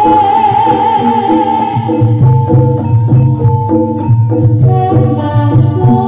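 Live Javanese jaranan gamelan music: kendang hand drums beating a steady rhythm over gongs and a stepping melody of bronze kettle gongs and metallophones.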